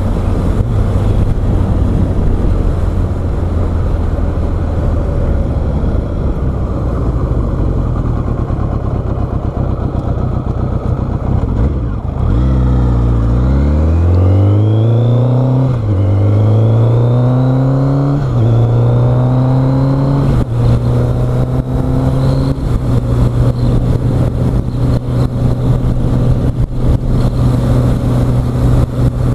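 Motorcycle engine heard from a helmet-mounted microphone, running steadily at first; about twelve seconds in it drops low and then pulls away, the pitch climbing through several gears with a drop at each upshift before settling into a steady cruise.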